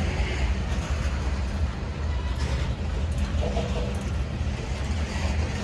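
Covered hopper cars of a freight train rolling past: a steady rumble of steel wheels on the rails, with a few short clanks.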